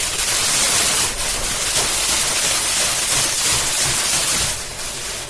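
Plastic grocery bag caught in a running box fan, flapping and rattling against the spinning blades, heard as a loud, steady rushing noise that eases off about four and a half seconds in.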